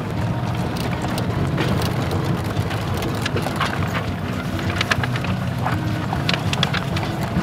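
Cabin noise inside a van driving slowly: a steady low engine and road hum with frequent small clicks and rattles scattered through it.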